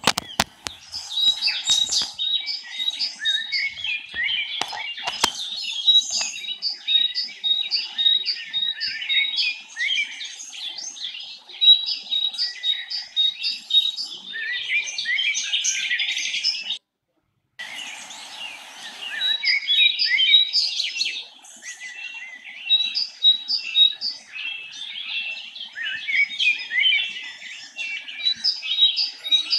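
Many small birds chirping and twittering densely, with one high note repeated over and over. A few clicks sound in the first few seconds, and everything cuts out for under a second about seventeen seconds in.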